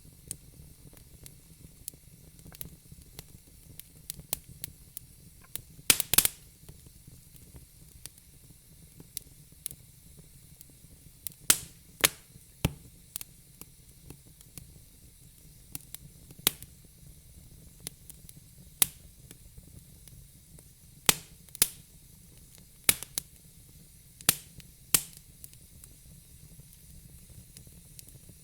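Fire crackling: irregular sharp pops and snaps, some in quick clusters, over a steady soft hiss.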